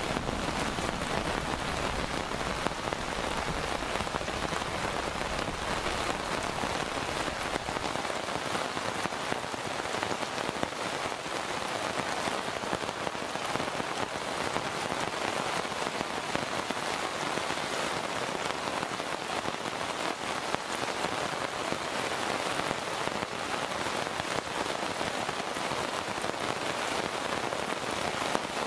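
Heavy monsoon rain pouring steadily onto a road and roadside trees, a dense, even hiss. A low rumble underneath fades out about eight seconds in.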